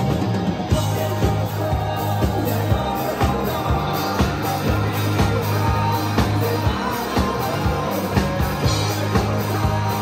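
Live rock band playing: drum kit keeping a steady beat under electric guitar and bass, with a male voice singing through the PA.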